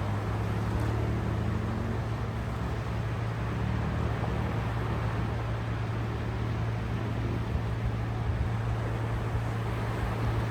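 Steady rushing sea noise with no distinct wave breaks, over a constant low hum.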